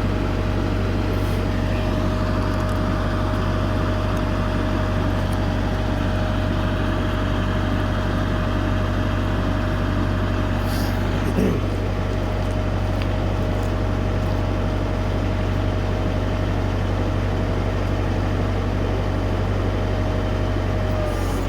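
LS tractor's diesel engine running steadily while working a backhoe, with a constant whine over the engine note. A brief knock comes about halfway through.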